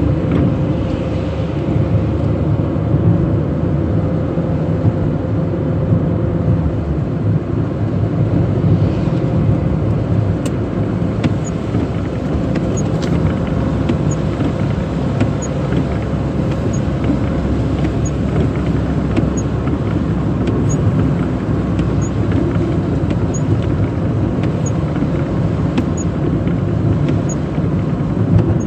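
Car driving on a wet road in the rain, heard from inside the cabin: a steady rumble of engine and tyres. From about a third of the way in, a faint high tick repeats roughly every second and a half.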